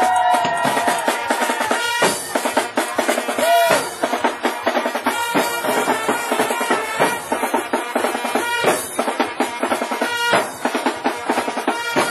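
Parade drum section playing fast, dense rhythms on strapped-on marching drums, snares and bass drums together, with a few held tones over the drumming near the start.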